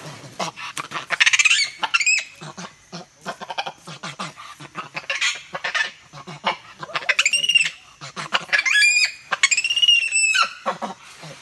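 Male spider monkey giving high-pitched squealing calls, each arching up and down in pitch: one about a second in, then a run of several more in the second half. Short clicks and rustling come in between.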